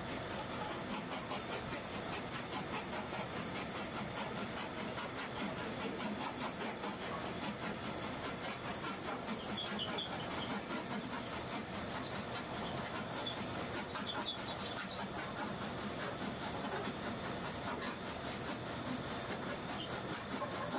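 Gold ore milling plant running steadily: hammer mill, belt conveyor and shaker table together make a dense, even mechanical clatter with a hiss of water and slurry.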